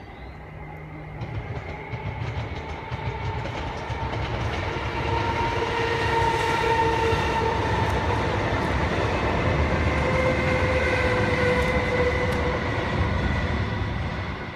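Electric multiple unit train passing over a steel girder bridge. Its rumble and whine build over the first few seconds, stay loud and steady through the middle, then fade near the end.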